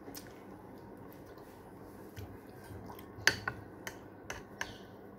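Close-up eating sounds of a person chewing a mouthful of instant noodles, with five short sharp clicks from about three seconds in, the first the loudest.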